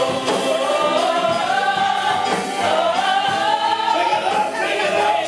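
Gospel choir singing, sustained voices in full harmony.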